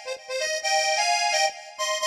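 Instrumental music: a melody of short and held notes with no bass, dipping briefly just after the start.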